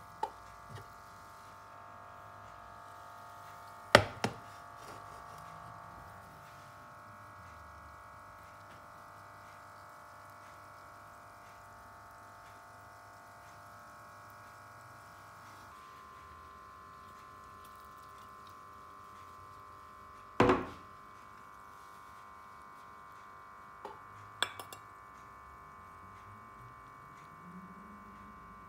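A stainless steel pot knocking against the glass hob and ceramic ramekins: a few sharp clanks, the loudest about 4 s in and about 20 s in, with a short cluster of lighter knocks around 24 s, under a faint steady hum.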